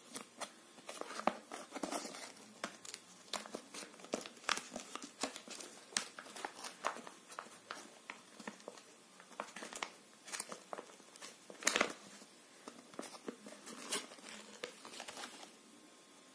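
Foil wrapper of a KitKat bar being peeled open and crinkled by hand: an irregular run of crackles and rustles that dies away about a second before the end.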